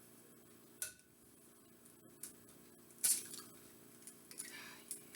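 An egg being cracked against a bowl: a few light knocks and clicks, the sharpest about three seconds in, over a faint steady hum.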